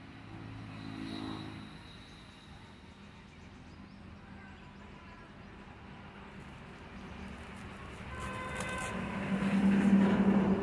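A motor vehicle's engine drone builds as it passes close by and is loudest near the end. A shorter, fainter engine-like hum comes near the start.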